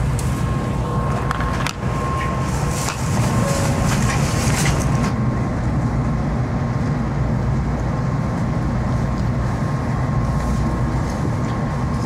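Steady low hum inside a stationary N700 series Shinkansen car, its onboard equipment running while it stands at the platform. A few knocks and a hiss come in the first five seconds, then only the hum remains.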